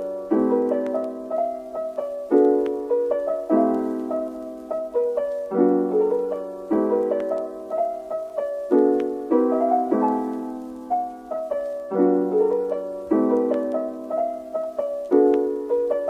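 Background piano music: gentle struck chords that change about once a second, each note fading after it is played.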